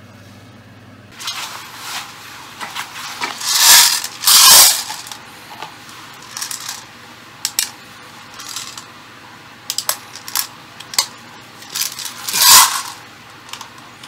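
Irregular metallic clicks, clinks and rattles from the electric airsoft STG44's magazine and parts being handled, with louder clattering bursts about four seconds in and again near the end.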